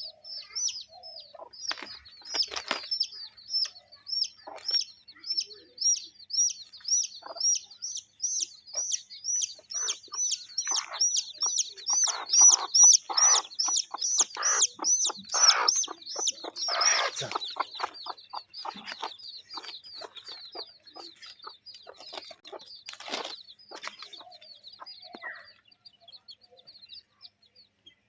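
Birds calling: a long series of high, evenly repeated chirps, about two a second, with louder, rougher bursts in the middle.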